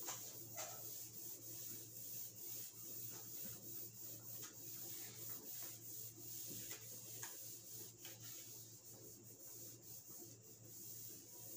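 Cloth rubbing across a whiteboard in many short, faint wiping strokes, erasing marker writing.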